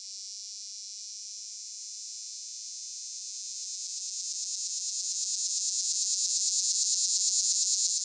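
Male Linne's cicada (Neotibicen linnei) singing: a high, shrill buzz that holds steady at first, then swells louder and takes on a rapid, even pulsing from about midway.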